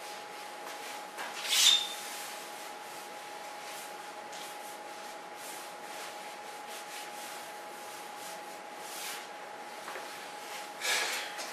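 Light rustling and rubbing over a faint steady tone, with a sharp clack a little under two seconds in. Louder handling noise near the end as the camera is lifted off its stand.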